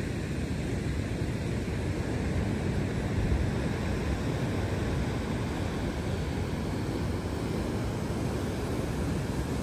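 Wind blowing on the microphone over surf breaking on the shore: a steady low noise that swells slightly about three seconds in.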